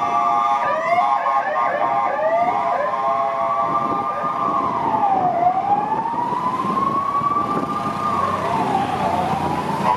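Several police escort sirens sounding together as a motorcade passes: overlapping tones gliding up and down, a quick warble in the first few seconds and then a slow rising-and-falling wail. The engine and tyre noise of the passing vehicles runs underneath.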